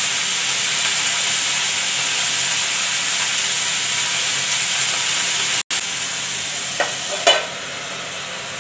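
Cut vegetables sizzling steadily in hot oil in an aluminium kadai on a gas stove. After a sudden break about two-thirds of the way through, a quieter steady hiss, with two light metallic clinks of steel plates.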